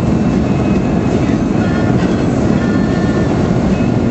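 Steady low rumble of a car driving on a snow-covered road, heard from inside the cabin, with a few faint short high squeaks over it.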